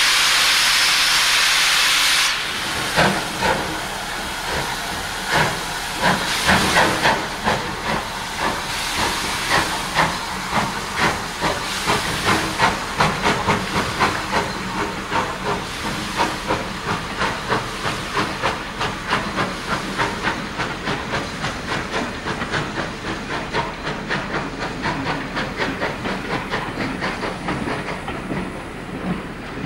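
BR Merchant Navy class 4-6-2 steam locomotive, a three-cylinder Bulleid Pacific, starting a train: a loud hiss of steam for about two seconds, then its chimney exhaust beats, which quicken and grow fainter as it gathers speed and moves away.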